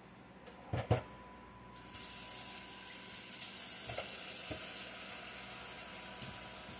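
Food sizzling in a lidded cast-iron skillet, the steady hiss coming up about two seconds in. Two sharp knocks come just before it, and a couple of lighter knocks follow later.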